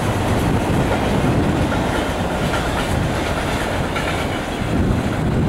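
CSX freight train of double-stack container cars and gondolas rolling past, its wheels on the rails making a steady, loud rumble.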